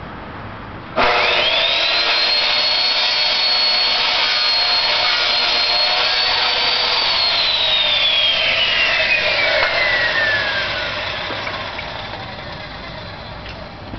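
A high-speed motor switched on about a second in, its whine climbing quickly to a high steady pitch, then winding down in a long falling whine as it is switched off and coasts to a stop.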